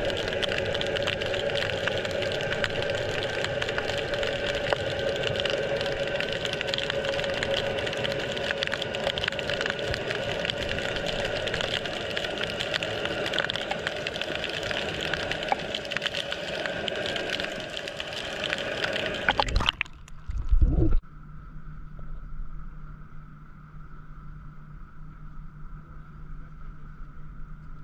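Sound recorded through water by a submerged camera: a steady wash of noise with several humming tones and scattered faint clicks. About twenty seconds in it gives way to a brief loud low thump, then a much quieter open-air background with a low steady hum.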